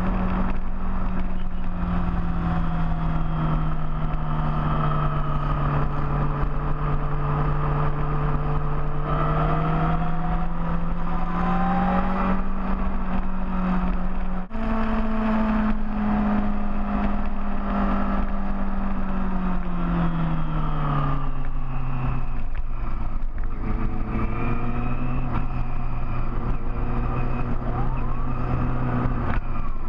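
Big motorcycle engine running under way, its note rising and falling slowly with the throttle and dropping lower about two-thirds of the way through, over wind and road rumble.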